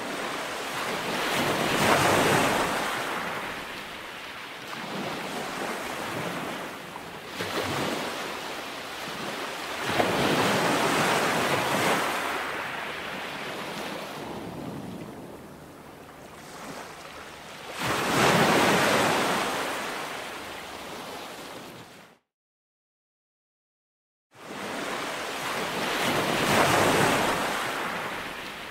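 Heavy ocean surf breaking against a rocky shoreline. It swells to a loud crash about every eight seconds, with wind buffeting the microphone. The sound drops out completely for about two seconds near the end, then the surf resumes.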